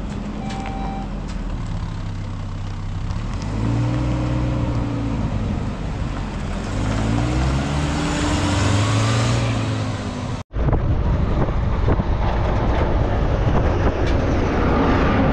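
Road traffic: motor vehicle engines running, their pitch rising and falling as vehicles pass, with one short electronic beep near the start. About ten seconds in the sound cuts suddenly to a louder, steadier engine rumble.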